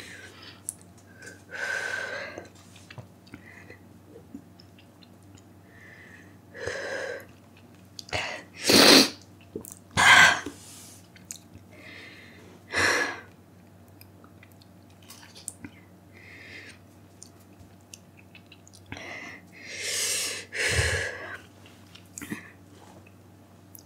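A person breathing hard through a burning mouth after eating an extremely hot chili chip: sharp breaths and blowing out through pursed lips, in about half a dozen separate bursts a few seconds apart, with small sniffs and mouth clicks between.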